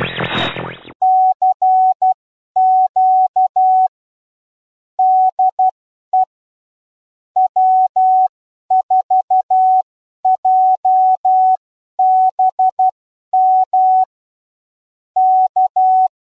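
Morse code: a single steady beep, a little under 1 kHz, keyed into short and long tones with longer pauses between groups, following the last second of an intro music passage.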